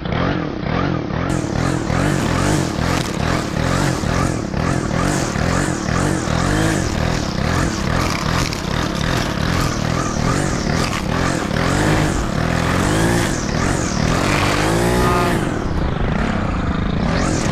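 Gas string trimmer's two-stroke engine running at high revs as it cuts grass. Its pitch rises and falls over and over, with a few longer climbs and drops near the end.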